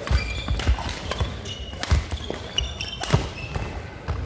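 Badminton rackets striking a shuttlecock in a doubles rally, about five sharp cracks, the loudest about three seconds in. Short high squeaks of court shoes on the wooden hall floor come between the hits.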